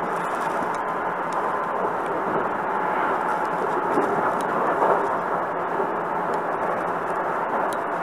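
Hankyu Kobe Line train: a steady, even rumble and hiss with no sharp events.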